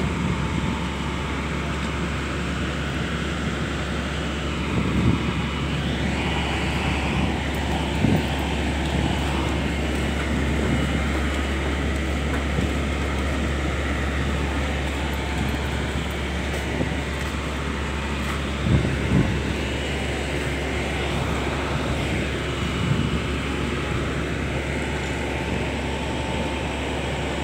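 Diesel engine of a mobile boat hoist (travel lift) running steadily with a deep, even drone while it holds a fishing boat in its slings, with a few short knocks here and there.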